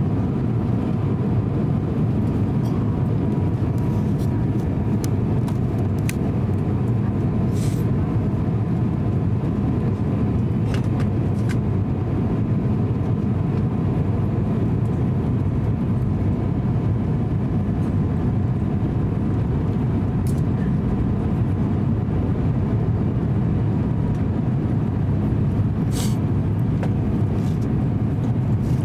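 Steady cabin noise inside an Airbus A350-900 airliner on approach: an even, deep rumble of engine and airflow. A faint steady whine runs through it, with a few brief clicks.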